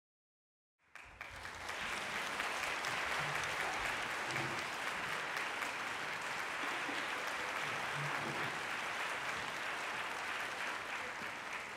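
Concert audience applauding: the applause starts about a second in, holds steady, and begins to die away near the end.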